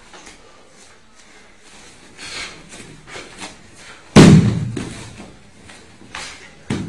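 A body thrown onto a padded training mat, landing with one loud slam about four seconds in; a smaller thud follows near the end.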